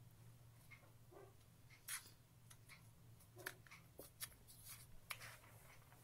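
Faint snips of small scissors cutting folded colour paper, about five separate cuts with a light rustle of the paper, over a steady low hum.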